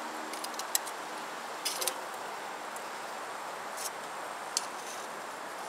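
Metal grilling tongs clicking sharply against the grill grate and food a few times, over a steady sizzling hiss of meat cooking on the grill.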